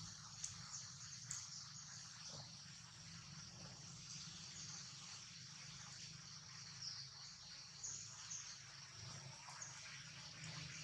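Faint outdoor ambience: a steady high-pitched insect chorus over a low hum, with a few short chirps.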